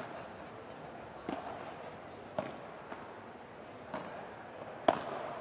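Padel rally: the ball pops off the players' padel rackets and bounces on the court, about one sharp hit a second, the loudest near the end.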